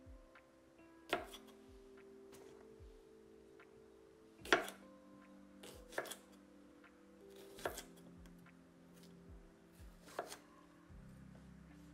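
Chef's knife slicing crisp garden cucumbers on a wooden cutting board: about seven sharp chops at irregular intervals, two of them in quick pairs, the loudest a little over a third of the way in.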